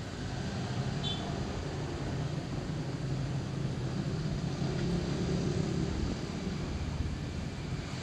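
Motorcycle engine running steadily at road speed, a low hum with wind and tyre noise over it.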